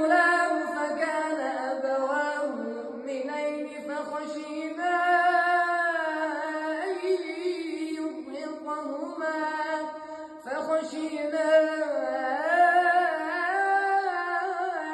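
A high voice chanting in long, ornamented melodic phrases in the style of Quran recitation, holding and bending notes, with brief breaths about four seconds in and again near ten seconds.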